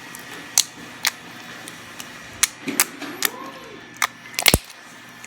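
Glossy clear slime being squished and poked, making sharp, irregular clicks and pops, about eight in five seconds.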